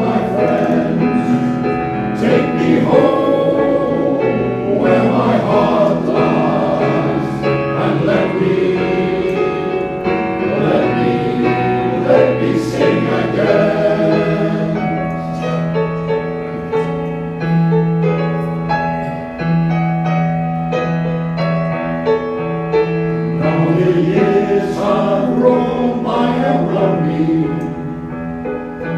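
Male voice choir singing in harmony, holding long low chords through the second half.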